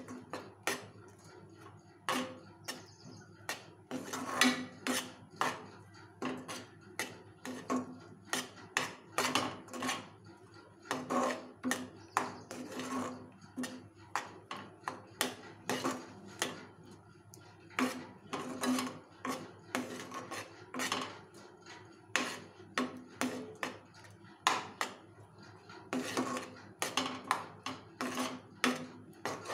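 Steel spoon scraping and knocking against a thick aluminium kadai as a thick white-chocolate fudge mixture is stirred, in repeated strokes about once or twice a second.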